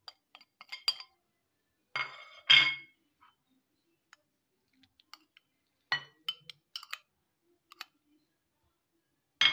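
A metal spoon clinking and scraping against glass bowls as spices and ginger-garlic paste are tapped out into a glass mixing bowl of minced chicken. Scattered light clicks with a few sharper, ringing clinks, the loudest about two and a half seconds in and another right at the end.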